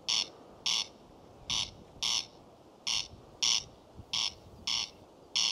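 Corncrake calling: a two-note call in pairs, each pair about a second and a half apart, four pairs in a row.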